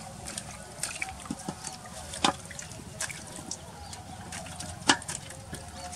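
Water splashing and dripping in a metal basin as a whole raw chicken is washed by hand, with many small splashes and two sharper, louder ones about two and five seconds in.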